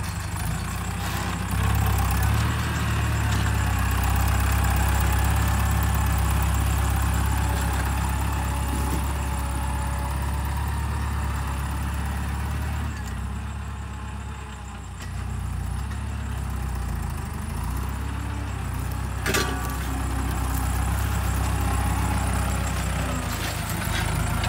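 New Holland TS90 tractor's diesel engine running steadily under load while pulling a disc plough through hard, dry soil. It dips quieter for a couple of seconds about halfway through, then picks up again.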